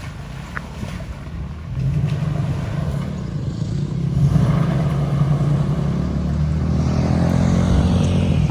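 Engine of a Nissan Xterra swapped to a Titan's VK56 5.6-litre V8, running under load off-road. It gets louder about two seconds in and pulls harder again a couple of seconds later.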